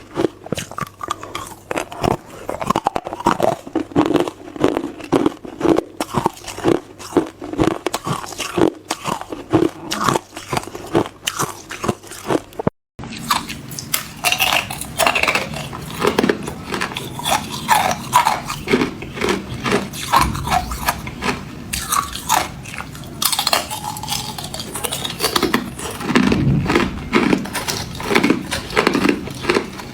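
Hard clear ice being bitten and chewed up close, a dense run of irregular crunches and cracks. There is a very brief dropout about thirteen seconds in.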